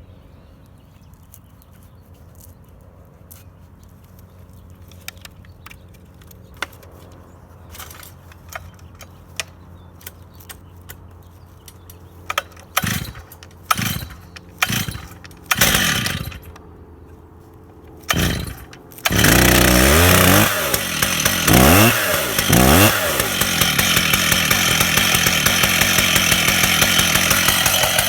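Stihl MS 880 two-stroke chainsaw being pull-started. After faint clicks, several short, loud pulls on the starter cord come about a second apart. Two-thirds of the way in the engine catches, revs up and down three times, then runs steadily and loud.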